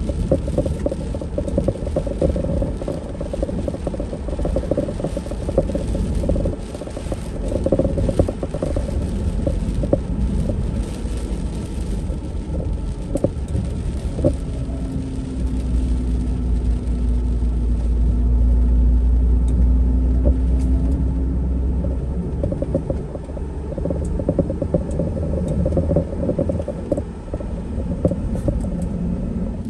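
Mercedes Sprinter camper van driving on a wet road, heard from inside the cab: a steady low rumble of engine and tyres. A steady engine hum comes up and the rumble grows louder for several seconds past the middle, then eases off.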